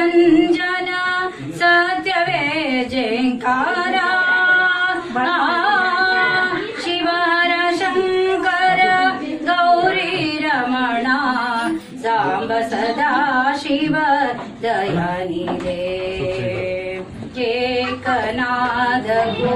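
A woman singing a devotional song to Shiva solo, her voice sliding and ornamenting the notes, with short pauses between phrases.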